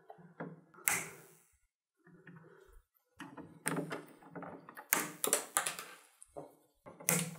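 Plastic zip ties being snipped with a cutting tool: a string of short sharp clicks with light handling knocks, one about a second in and a cluster between about three and five and a half seconds in.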